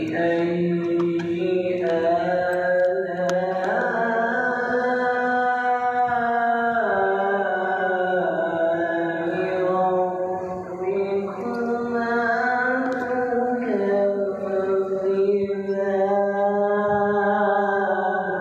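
A man's voice reciting the Quran in long melodic tajwid chant, holding sustained, ornamented notes that step to a new pitch every few seconds.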